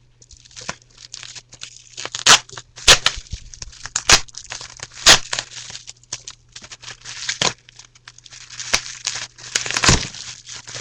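Bubble wrap and plastic packaging being carefully unwrapped by hand: crinkling with irregular sharp crackles and snaps.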